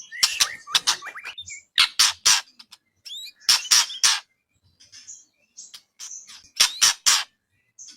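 White-rumped shama (murai batu) song: harsh rasping notes in quick groups of two to four, separated by short pauses, with a few brief whistled glides.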